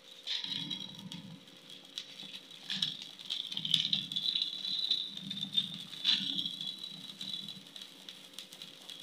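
Chicken gizzards and livers cooking in soy sauce and vinegar in a pan, the liquid crackling and popping with many small sharp ticks.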